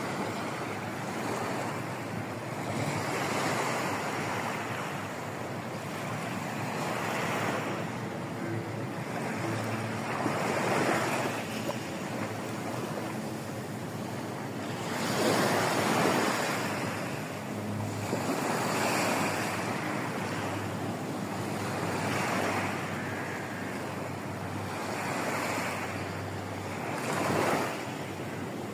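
Ocean waves breaking and washing up a beach, the surf swelling and fading every few seconds, with wind on the microphone.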